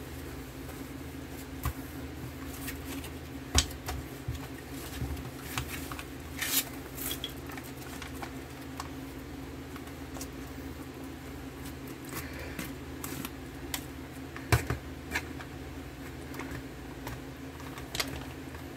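Hands handling and opening the foil pouch of a heated ration entrée: scattered crinkles and small clicks, with two sharp knocks, one about four seconds in and one about fourteen seconds in.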